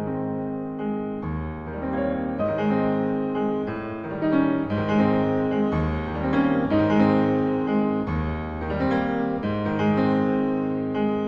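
Piano music: sustained chords with a bass line, changing about once a second.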